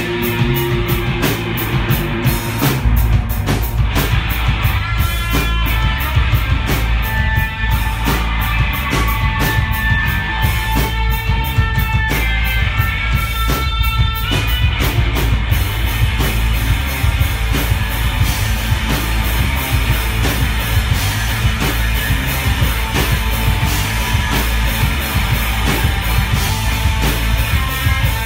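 A live rock band playing loud: electric guitars and a drum kit, with cymbals struck on a steady beat.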